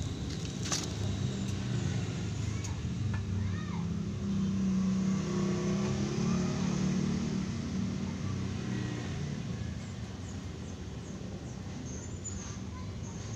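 A motor vehicle's engine going by: a low hum that grows louder about four seconds in and fades away after about eight seconds.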